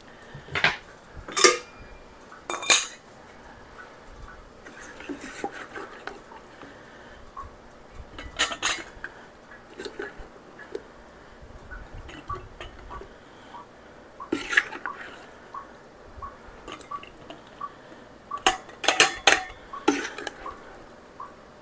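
Metal spoon and utensils clinking against a stainless steel stockpot, a canning funnel and a glass canning jar as apple pie filling is spooned into the jar: scattered sharp clinks and knocks with small ticks between, busiest near the end.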